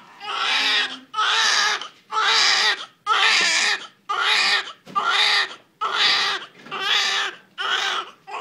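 Newborn baby, a few minutes old, crying: a steady run of short wails, about one a second, with a quick breath between each.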